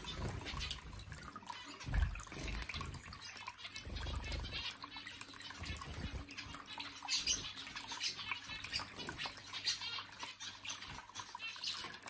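Water from a small electric bird-bath fountain trickling and splashing into its basin, with pet finches fluttering and splashing in the water as they bathe, and a few short chirps.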